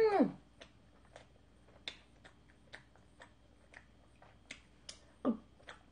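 Close-miked mouth sounds of someone eating a mouthful of ice cream and soft rice cake: small wet clicks and lip smacks coming irregularly, about two a second. A hummed 'mmm' fades out at the very start, and a short falling hum comes about five seconds in.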